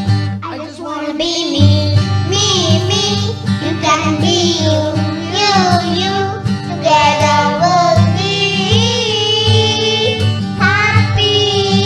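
Children's choir singing a song over acoustic guitar accompaniment.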